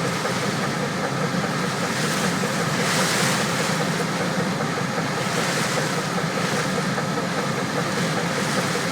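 Strong storm wind gusting against a truck, heard from inside the cab as a steady rushing, with louder gusts swelling about three seconds in and again around five to six seconds, over a low steady hum.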